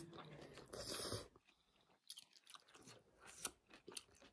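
Soft mouth sounds of eating instant noodles: a hissing slurp for about the first second, then quiet chewing with lip smacks and small clicks.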